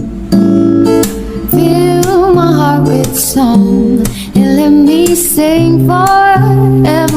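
A woman singing, holding long wavering notes, over a strummed acoustic guitar.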